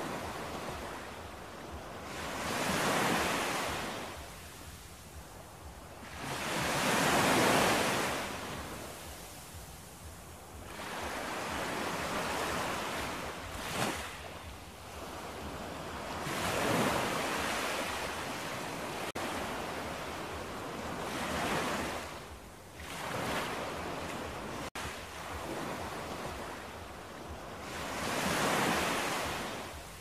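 Ocean surf on a sandy beach: waves break and wash up the shore, the noise swelling and fading every four or five seconds.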